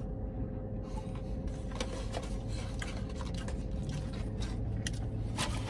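Soft rustling and scraping of paper fast-food packaging as it is handled, with a few faint clicks, over a steady low hum inside a parked car.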